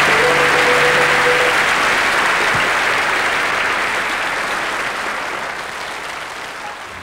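Audience applause that fades away gradually, with the song's last held note dying out in the first second or so.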